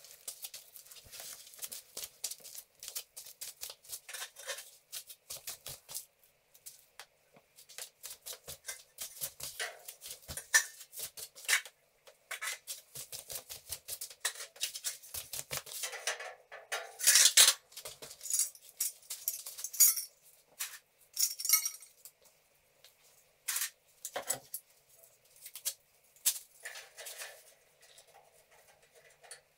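Irregular metallic clinks, taps and scrapes of galvanized steel drywall profiles being handled and fitted against a stone wall, with a louder cluster a little past halfway.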